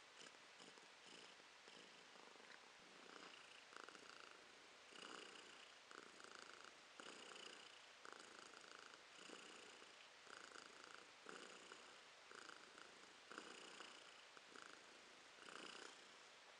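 Domestic cat purring, faint and steady, swelling with each breath about once a second.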